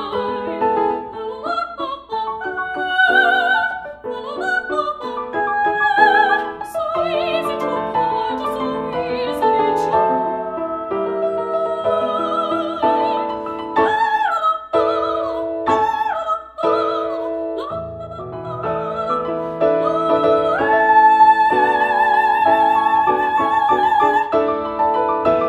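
A woman singing an opera aria with a strong vibrato over piano accompaniment; near the end her voice rises to a high note and holds it for several seconds.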